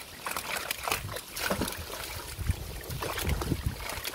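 Live fish thrashing and splashing in shallow water inside a crowded fishing net, with water trickling and irregular wet slaps; a few heavier thuds come in the second half.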